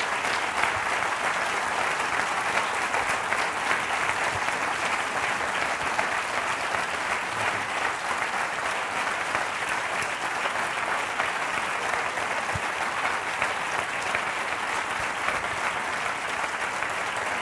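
A large audience applauding steadily: a dense, even patter of many hands clapping at once.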